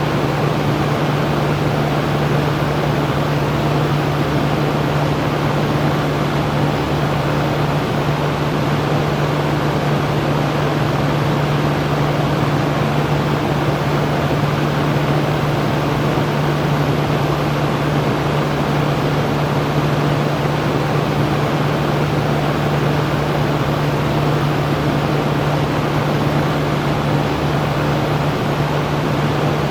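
Electric fan running steadily: an even rush of air with a constant low motor hum underneath, unchanging throughout.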